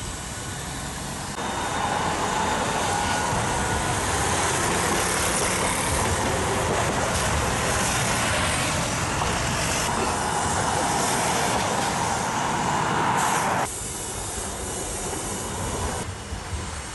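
Road traffic with a city bus driving past close by, a steady rush of engine and tyre noise with a faint wavering whine. The sound grows louder all at once a little over a second in and drops back abruptly near the end.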